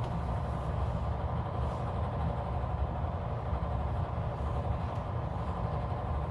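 A steady low background hum, even in level throughout.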